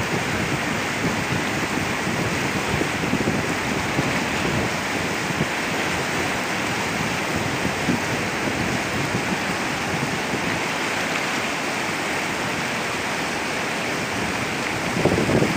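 Flooded Swat River rushing steadily: a continuous, even noise of fast, high water running through its channel.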